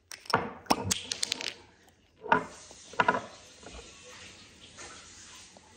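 Mouth and handling noises while tasting hot sauce off a spoon: a quick run of clicks and lip smacks, then two short, louder mouth or breath sounds, then a faint steady hiss.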